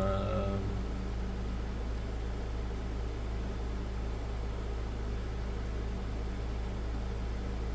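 Steady low hum with an even hiss underneath: a constant background drone.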